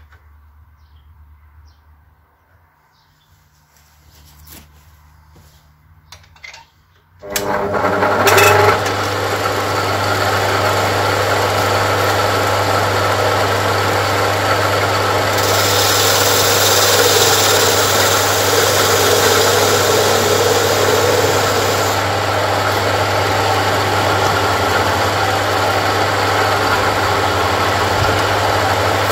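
Homemade wood lathe's single-phase 220 V, 0.27 kW induction motor and belt drive switched on about seven seconds in, after a few faint handling clicks, then running steadily with a low hum. From about fifteen to twenty-two seconds a hissing scrape rides over it as a file is held against the spinning wooden workpiece.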